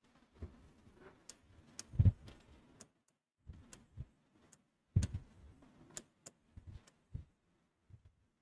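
Stylus tapping and sliding on the glass of an interactive display while drawing, heard as a string of irregular sharp ticks. Mixed in are a few dull knocks, the loudest about two seconds in and again at five seconds.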